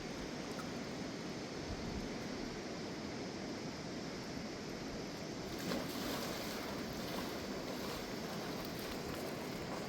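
Rushing mountain river: a steady roar of fast water over rocks, growing a little brighter and hissier about halfway through, with one brief knock just after that.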